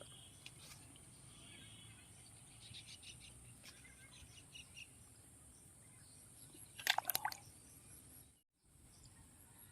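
Open-air rural ambience: a steady high insect buzz with faint bird chirps, broken about seven seconds in by a short burst of rapid sharp rattling strokes. The sound cuts out for a moment soon after.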